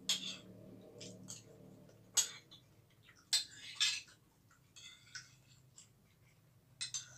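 Metal spoon scraping and clinking against a ceramic bowl as food is scooped up, in about six short scratchy bursts, the longest just past the middle.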